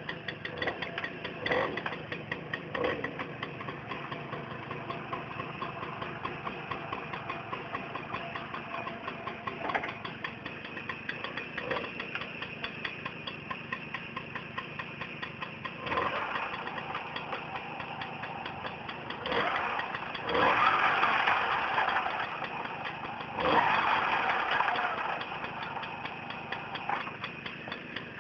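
Tomos moped's two-stroke single-cylinder engine idling with a fast, even tick, blipped several times, with two longer revs about two-thirds of the way through.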